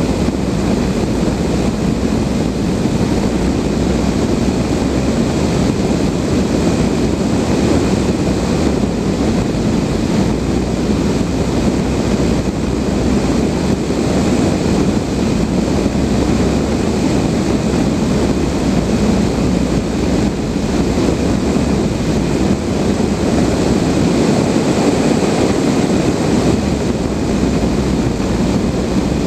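Steady rushing airflow noise inside the cockpit of a Blanik L-13 glider in flight, loud and unchanging, with wind buffeting the microphone.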